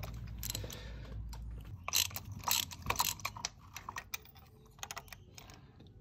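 Ratchet with a spark-plug socket clicking as a spark plug is unscrewed from its plug well: a run of irregular clicks, thickest about two to three seconds in, then thinning out. A low hum underneath stops about two seconds in.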